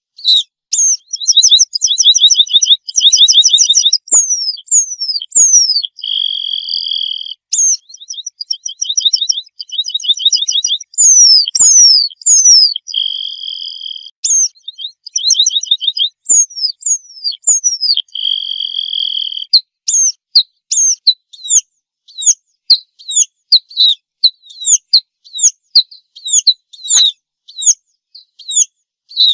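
Red-throated pipit singing. Its phrases mix high rapid trills, sharp downslurred notes and drawn-out buzzy notes, repeated over and over.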